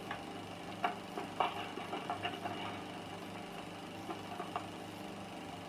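Steady low hum and hiss of an old Standard 8mm sound-film soundtrack, with a few faint short sounds about one to two seconds in and again near four seconds.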